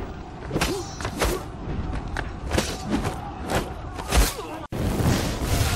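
A series of sharp thumps with swishing sweeps, about one every half second to second. Near the end it breaks off suddenly for a moment and gives way to a steadier noise.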